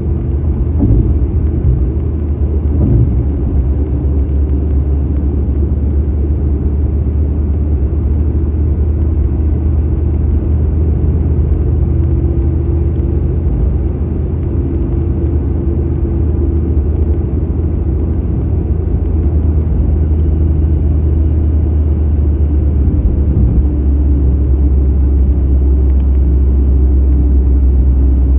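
Steady low rumble of road and engine noise from a car moving along a highway, heard from inside the car.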